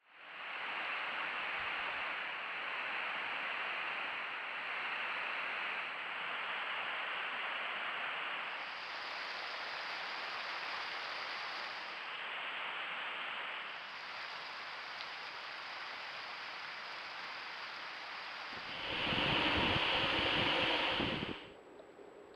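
Trail camera's own recording: a steady hiss of microphone noise and outdoor air with a thin, steady high whine, its level and tone shifting in blocks. A louder, fuller rush of noise comes about three seconds before the end and cuts off suddenly.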